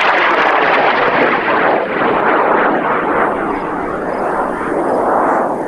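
High-power rocket motor burning as the rocket climbs, a loud, rough roar that eases off a little and then fades near the end.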